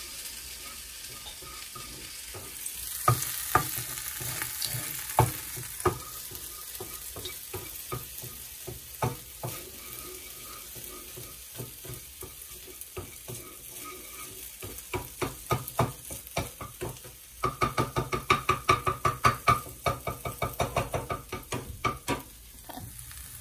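Cauliflower rice and mushrooms sizzling in a frying pan while a utensil stirs and scrapes through them, knocking on the pan now and then. About 17 seconds in comes a quick, louder run of scraping strokes, about four or five a second, lasting some five seconds.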